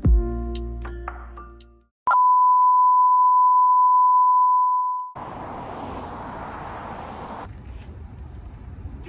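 Background music ends on a fading chord, then after a brief gap a steady electronic beep at one pitch sounds for about three seconds. It is followed by a couple of seconds of rushing hiss, then a quieter steady background.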